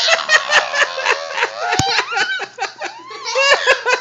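Young children laughing and squealing in short, high bursts, with a single thump near the middle.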